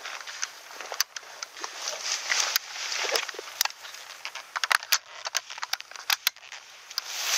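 Sharp, irregular clicks and ticks, thickest around five to six seconds in. Brush rustles as someone pushes through grass and leaves, fading at the start and returning near the end.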